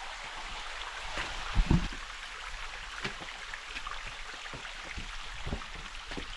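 Shallow creek water running over rocks at a low-flowing waterfall, with scattered knocks and a loud low thump about a second and a half in.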